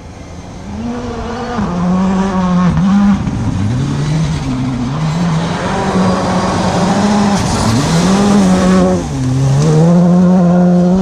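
Rally car engine revving hard as the car approaches and grows louder, its pitch climbing and then dropping again several times as it shifts gears and lifts off.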